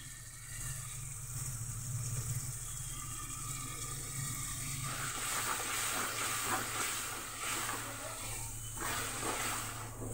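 Hot masala hissing and sizzling in a steel kadai as boiled dal goes in, with a ladle stirring and scraping the pan more busily from about halfway through.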